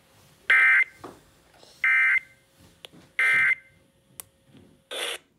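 Three short, buzzy bursts of SAME digital data, about 1.3 s apart, from a NOAA Weather Radio broadcast through a clock radio's speaker. This is the end-of-message code that closes a weather warning. A shorter burst of a lower-reaching sound comes near the end.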